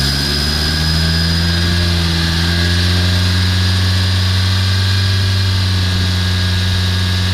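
Mercedes C200 d diesel engine being revved up and held at raised revs, rising in pitch over the first couple of seconds and then running steady, during an exhaust back-pressure test.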